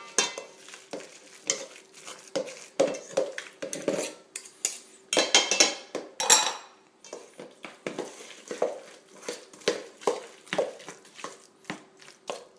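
Hand masher knocking and scraping against a stainless steel bowl while mashing avocado for guacamole, in irregular clatters. About five to six and a half seconds in comes a louder run of scrapes and knocks as the masher is scraped off against a small bowl.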